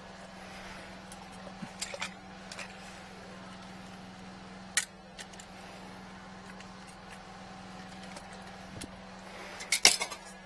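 Clicks and knocks of a high-pressure drain-jetting hose and its fittings being handled at a drain cleanout, a few scattered early and the loudest cluster near the end, over a steady low hum.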